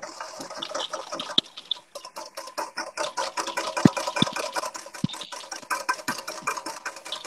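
Wire whisk beating egg yolks and vinegar in a stainless steel bowl, with rapid, rhythmic clicking and scraping of the wires against the metal: the yolks being whisked over gentle heat into a foamy sabayon, the base for hollandaise.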